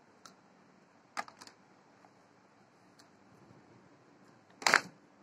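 Handling noises: a few light clicks and taps as a hot glue gun's power cord is handled, then one short, louder knock near the end.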